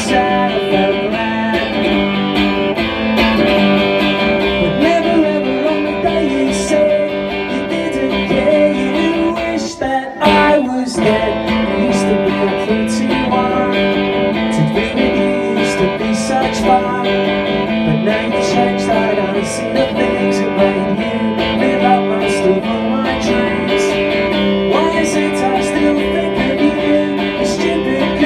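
Electric guitar, a Rickenbacker-style six-string, strummed in steady chords through an amplifier in a live solo performance, with a short break about ten seconds in.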